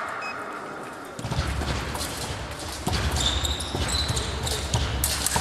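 Footfalls and dull thuds of fencers moving on the piste, echoing in a large sports hall, with a low rumble of hall noise starting about a second in. Faint steady high electronic tones sound about three seconds in.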